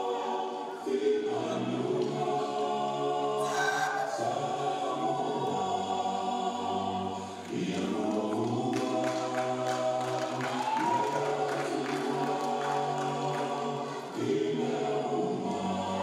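A group of men singing unaccompanied in harmony, long held chords sung in phrases with short breaks between them.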